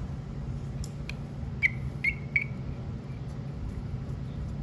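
Three sharp plastic clicks with a short ring come between about one and a half and two and a half seconds in, as hands work the engine housing of a Craftsman WS210 string trimmer. They sit over a steady low hum, and the trimmer's engine is not running.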